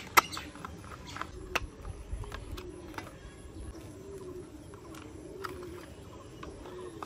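Scattered clicks and taps of a small screwdriver and fingers on a plastic toy car chassis as screws are driven in, the sharpest click just after the start.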